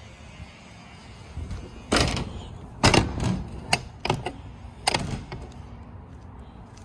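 A series of sharp thuds and knocks, about six in three seconds, from footsteps on the floor and rear step of an enclosed fiberglass utility truck body as someone climbs out the back door.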